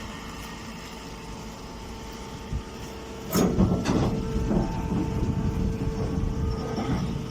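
Grass press baler machine running with a steady motor hum and whine; about three seconds in it gets louder, with clanking and rumbling that lasts several seconds as the press works.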